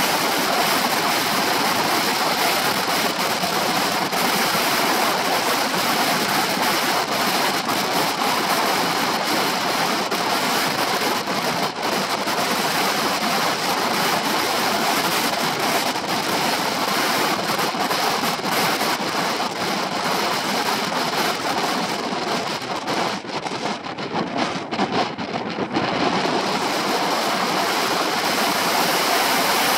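Wind rushing over the camera microphone on a moving Honda PCX 125 scooter, a steady loud noise that covers the ride's other sounds. About three-quarters of the way through it thins and dips for a few seconds before returning.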